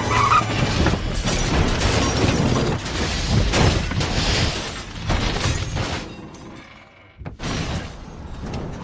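Animated car crash sound effects: a long run of crunching metal impacts and breaking as a race car tumbles. It dies down about six seconds in, then another burst of crashing comes near the end.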